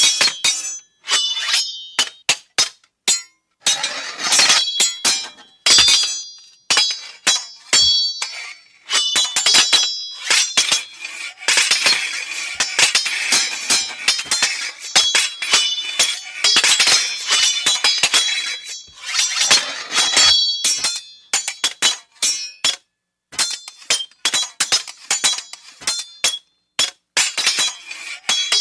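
Glass clinking and breaking: many sharp hits, each with a short bright ring, packed densely in the middle into a run of tinkling and shattering.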